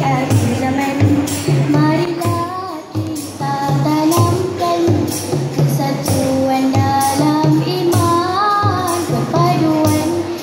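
A group of young girls singing a nasheed together into microphones, with a steady beat on hand drums.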